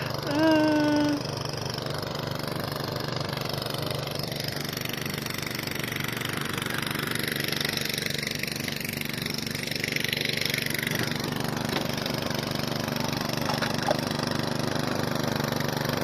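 Snowblower engine running steadily as it clears a path through deep snow. A short pitched call, the loudest sound, comes about half a second in.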